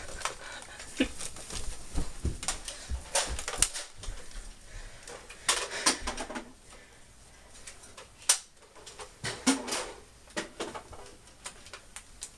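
Scattered, irregular clicks and knocks, with a few louder sharp strikes about three and a half, five and a half and eight seconds in.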